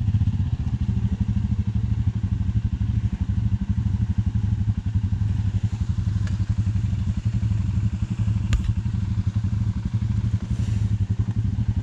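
Dirt bike engine idling with a steady, even chug. A single sharp click sounds about three-quarters of the way through.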